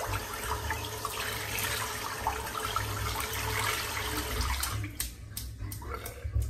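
Tap water running into a bathroom sink as a wet-shaving brush is rinsed under it. About five seconds in the water stops and a quick run of sharp flicks follows, about three a second, as the water is shaken out of the brush knot.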